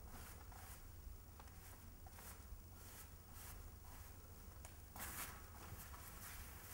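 Paintbrush dragging paint across a canvas: faint, repeated soft swishes, with a louder, longer stroke about five seconds in.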